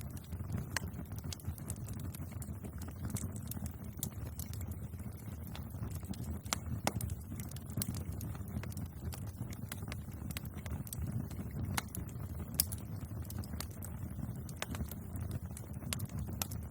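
Wood fire crackling: irregular sharp pops and snaps over a steady low rumble of the flames.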